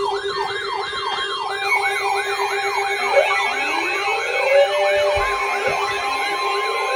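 Several electronic sirens sounding together: a fast yelp sweeping up and down about three times a second, over slower rising and falling wails.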